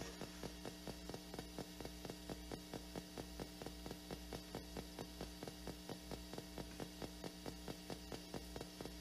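PSB7 spirit box sweeping through radio stations, played through a small speaker: an even, rapid ticking, about four or five clicks a second, over a steady electrical hum.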